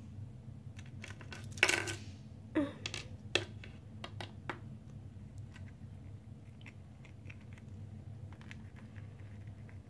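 Small plastic toy pieces clicking and knocking against a wooden tabletop as they are handled and set down, a scatter of light taps in the first half, with a brief rustle about one and a half seconds in.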